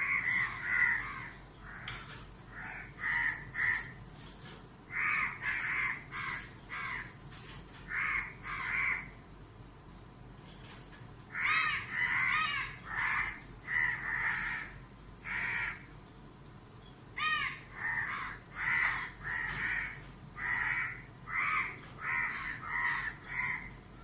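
House crows cawing in quick runs of harsh calls, with short pauses about ten and sixteen seconds in: mobbing calls aimed at a barn owl.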